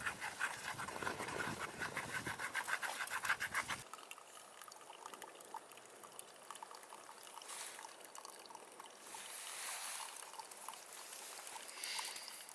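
Liquid being poured in a quick run of glugs for about four seconds, followed by a quieter, light crackling.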